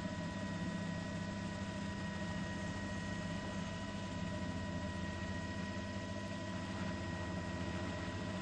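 Steady drone of a news helicopter heard from inside its cabin: an even low hum with a faint high whine and hiss, unchanging throughout.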